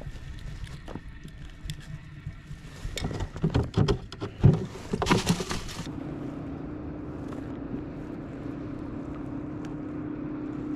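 Irregular knocks and clatter on a plastic cutting board as a freshly caught tarakihi is handled with a pointed tool. From about six seconds in comes a steady whirring hum of one pitch, typical of a fishing reel's spool spinning freely as the line pays out.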